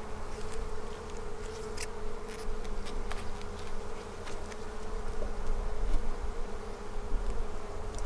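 Honeybees buzzing in a steady hum over an open hive. Scattered light clicks and knocks come from the wooden frames and the metal hive tool being handled.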